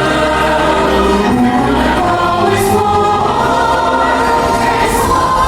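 Stage-show music with a choir singing.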